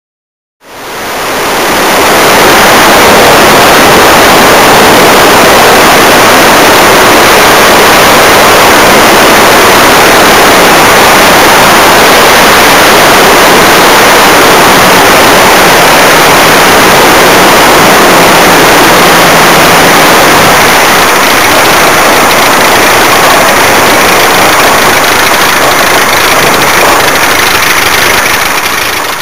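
KZ-III light aircraft's engine and propeller running under a heavy rush of air, picked up by a small camera on the wing strut and near overloading its microphone. The noise fades in over the first couple of seconds and fades out right at the end.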